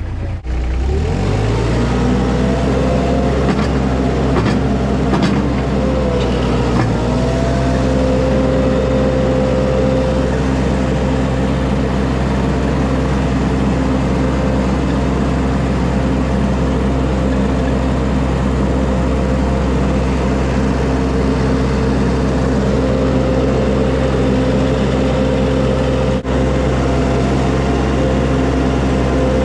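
Skid steer engine revving up about a second in, then running steadily at high revs while working.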